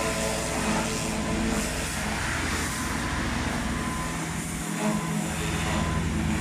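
Kärcher pressure washer running steadily, its water jet hissing against the tracks of a mini excavator as the mud is washed off, over a low motor hum.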